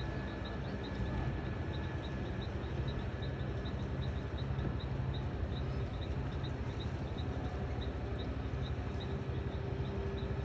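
An engine running steadily with a low rumble, and a short high chirp repeating evenly about three to four times a second.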